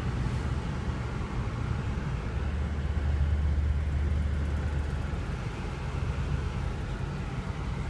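Low, steady engine and road rumble of a car heard from inside the cabin, swelling for a couple of seconds in the middle.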